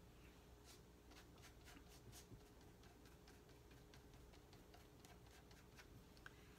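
Faint, irregular soft ticks and light brushing of a silicone pastry brush dabbing water onto rounds of fresh pasta dough, wetting them so the ravioli will stick together.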